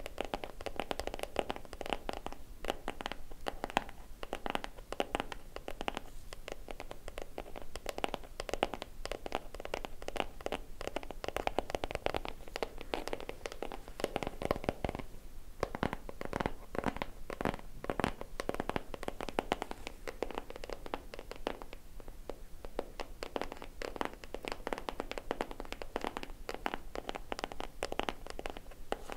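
Fingernails tapping and scratching on a small cardboard gift box, a dense run of quick taps and scrapes.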